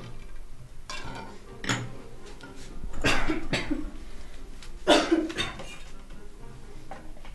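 Clay dishes and a metal spoon clinking and scraping during a meal, in several short, sudden clatters, the loudest about three and five seconds in.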